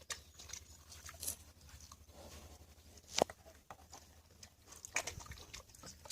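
Pigs in a pen, with scattered sharp clicks and knocks, the sharpest about three seconds in, over a low steady hum.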